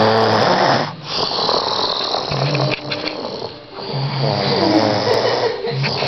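A woman snoring loudly: long, repeated snoring breaths with short pauses just after the first second and again past the middle.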